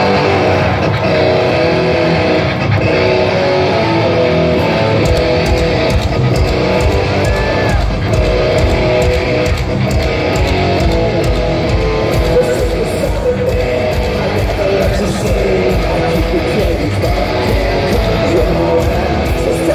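A live rock band playing through the concert sound system, with heavy electric guitars, heard from within the crowd. A pounding beat comes in about five seconds in.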